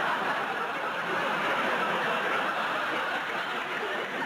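Audience laughing, one sustained wave of crowd laughter at a steady level.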